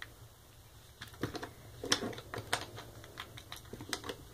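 Hard plastic clicks and taps from a small LEGO brick model being handled and turned in the fingers, irregular, starting about a second in.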